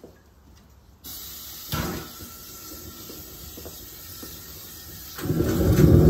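Gas burner of a home-made keg furnace being lit: a steady hiss starts about a second in, a single knock follows shortly after, and near the end the burner catches and runs with a loud, low rumble.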